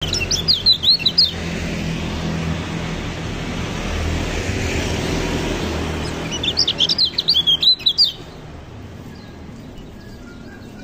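Caged white-eye singing two quick bursts of high, rapid twittering chirps, one at the start and one about six and a half seconds in, over a low rumble that fades after about six seconds.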